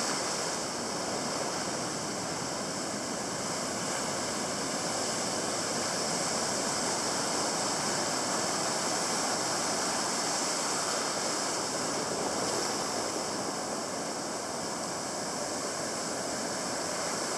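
Ocean surf: a steady rush of breaking waves and foaming white water, with no separate crashes standing out.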